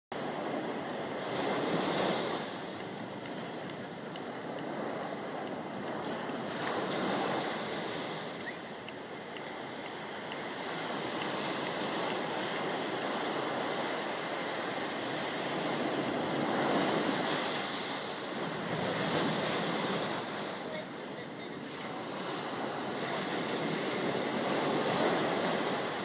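Small ocean waves breaking and washing up a sandy beach: a continuous rush of surf that swells and eases every few seconds as each wave comes in.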